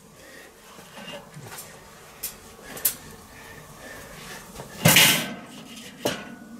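Grill tongs clinking lightly on charcoal briquettes in a Weber kettle grill, a few scattered clicks, then one loud metal clatter about five seconds in as the wire cooking grate is handled and set onto the kettle.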